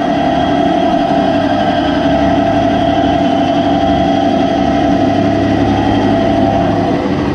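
Electric sugarcane juice press running steadily as cane is pressed between its rollers: a loud, even motor hum with a steady tone. The hum stops about seven seconds in.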